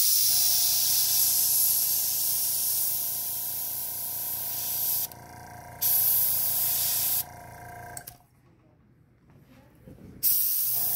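Airbrush spraying paint in hissing bursts: a long one of about five seconds, a short one, then another starting about ten seconds in. A steady hum with a faint whine runs under the first eight seconds.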